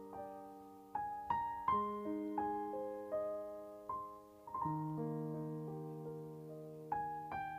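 Background piano music: a slow melody of single notes, each struck and left to ring, over held low notes.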